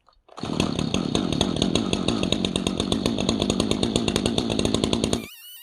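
Chainsaw running steadily for about five seconds, then cut off abruptly.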